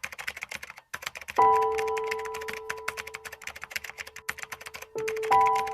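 Rapid keyboard-typing clicks over music. A struck note rings out about a second and a half in and slowly fades, and two more notes are struck near the end.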